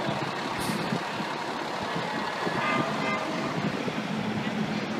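Heavy diesel trucks running in city street traffic, a steady rumble with a brief high tone about two and a half seconds in.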